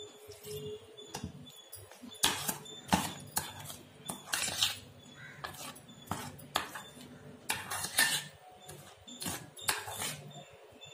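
Metal spoon scraping and clinking against a bowl as thick dough of powdered biscuits, sugar, flour and milk is stirred. The strokes come irregularly and start about two seconds in.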